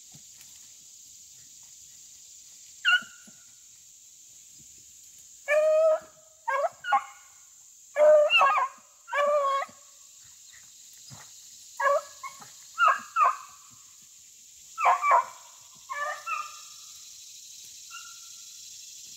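Rabbit-hunting dogs barking in the brush, about a dozen pitched barks in short clusters, typical of a pack giving mouth on a rabbit's trail.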